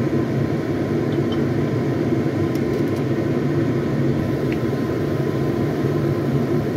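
Pan of water with vegetables at a rolling boil, a steady bubbling noise.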